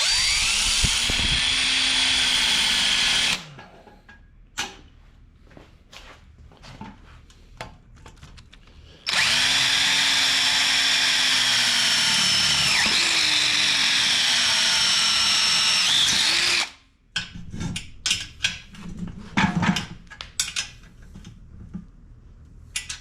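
Power drill drilling holes in aluminum tubing, in two long runs about six seconds apart, its motor pitch sagging and recovering as the bit bites. Between and after the runs, scattered clicks and knocks of handling.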